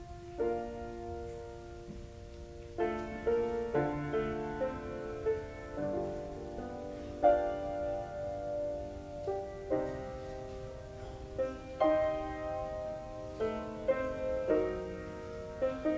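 Piano playing a slow piece of chords and melody, with new notes struck about once a second and fading between strikes.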